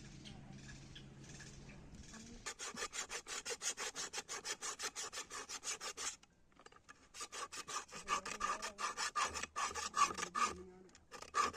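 Rapid back-and-forth strokes of a hand file, about six or seven a second, in two long runs with a short pause between them and a brief burst near the end. This is typical of filing metal at a forge. A faint low hum is heard before the filing starts.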